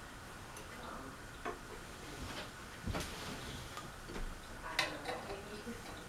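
A few scattered, irregular light clicks and knocks of metal ceiling-fan hardware being handled on a metal rack, over a faint steady background.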